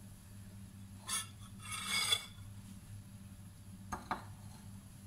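Kitchenware clinking and scraping: a short clatter about a second in, a longer ringing scrape around two seconds in, and two light clicks near four seconds, over a low steady hum.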